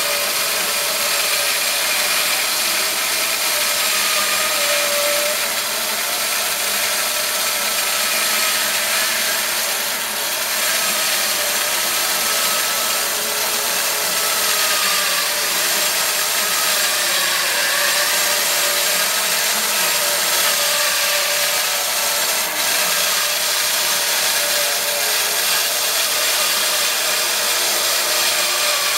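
Homemade bandsaw mill's band blade, driven by a 4 HP electric motor, sawing a board off a pine log: a steady, loud hiss of cutting with a faint tone that wavers slightly in pitch as the head is fed along.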